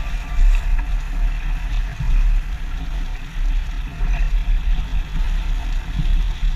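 Wind buffeting the microphone in uneven gusts, over the rush of water along the hull of a J/105 racing sailboat under way.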